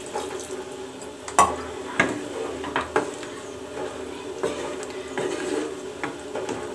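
A spatula stirs a thin tamarind curry in a non-stick kadai, knocking and scraping against the pan about once a second. A steady hum runs underneath.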